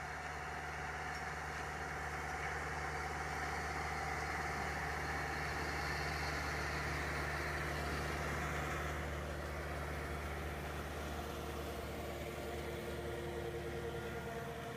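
Kubota tractor's diesel engine running steadily under load while its Kuhn disc mower-conditioner cuts and conditions ryegrass, with a steady low hum and a rushing whir from the cutter. It grows louder as the rig passes close, about halfway through, then eases off.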